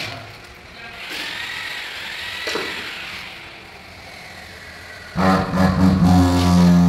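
Handheld tile vibrator starting about five seconds in on a large porcelain floor tile, catching briefly and then running with a steady low hum, used to bed the tile into the mortar.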